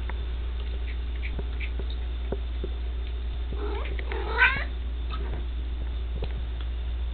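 Maine coon cat meowing once, a single rising call of about a second, roughly four seconds in, amid faint scattered clicks and a steady low hum.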